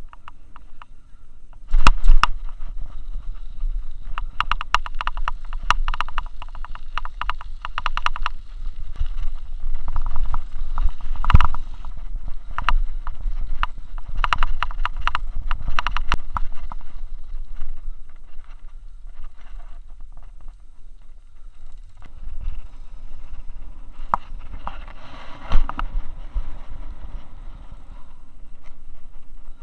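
Handlebar-mounted camera rattling and clattering as its wheeled carrier rolls over a rough path, with a low rumble underneath. Sharp jolts stand out about two seconds in, near the middle and near the end, and the rattling eases for a few seconds after the middle.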